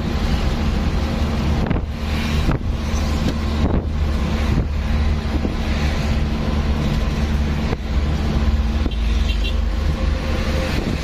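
A vehicle on the move: a steady engine hum over a low road rumble, with wind buffeting the microphone.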